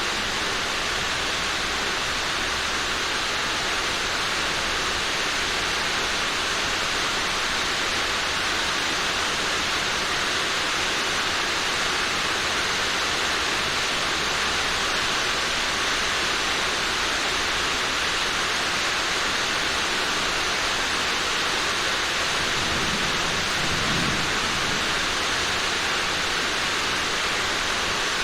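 Rain falling steadily on a roof: a continuous, even hiss. A faint low rumble comes near the end.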